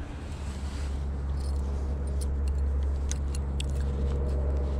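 A steady low mechanical hum from the boat's motor, with a few light metallic clinks from the lure's treble hooks and split rings as it is handled, mostly in the second half.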